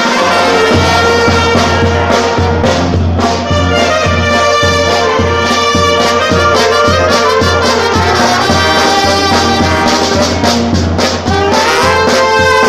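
Charanga band playing live: saxophones and brass horns holding a melody over a steady bass drum and cymbal beat.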